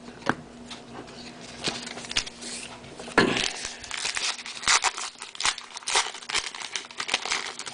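Crinkling and tearing of a baseball card pack's wrapper as it is handled and torn open. A sharper rip comes about three seconds in, followed by a steady run of crackling.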